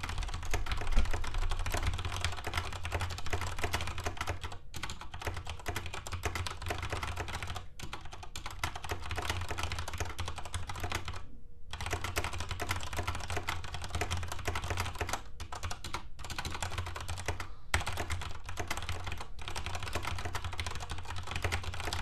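Fast touch-typing on a DSI Modular mechanical keyboard with Cherry MX Brown switches: a dense, continuous clatter of keystrokes, with brief pauses and one short gap about halfway through.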